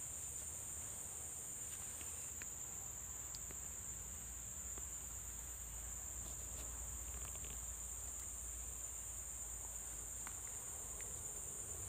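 Insects in the surrounding vegetation chirring in a steady, high-pitched drone, with a few faint ticks.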